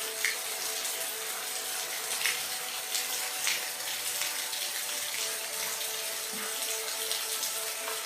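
Rain falling steadily, an even hiss with scattered single drops splashing close by.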